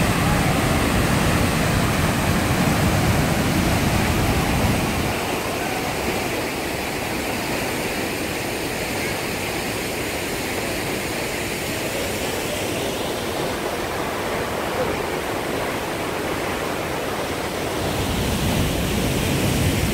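A waterfall's steady rush of falling water. A deeper rumble sits under it for the first five seconds and comes back near the end.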